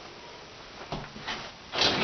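Handling noise while fitting a dishwasher into place: a knock a little under a second in, then a loud scraping rub near the end.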